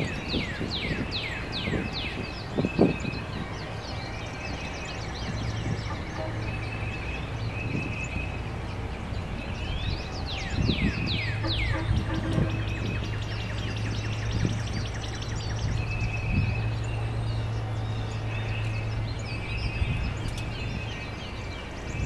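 Wild songbirds singing: a quick run of down-slurred whistles at the start and another about eleven seconds in, with short steady high notes recurring between them. A steady low hum runs under the middle of the stretch.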